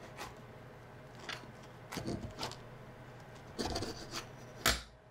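A knife sawing through a baked hero sandwich roll on a wooden cutting board: short rasping strokes as the blade cuts the crust, with the loudest stroke near the end.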